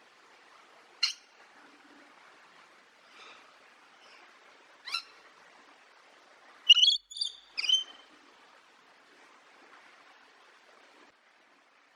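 Parrot calling in short, sharp, high squawks: one about a second in, one around five seconds, and a louder run of three close together around seven to eight seconds, over a faint hiss that stops near the end.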